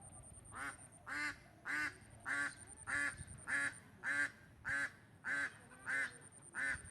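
An animal calling in a steady series of about eleven short, evenly spaced calls, a little under two a second.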